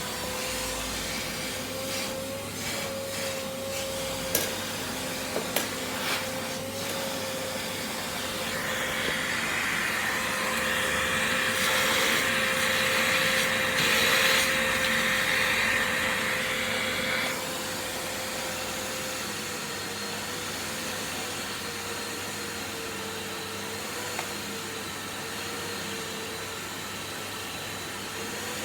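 Stihl SE 122 E wet-and-dry vacuum cleaner running at a steady pitch, with a few clicks early on. From about nine seconds in to about seventeen seconds in, a louder airy rush of suction rises over the motor, then drops back.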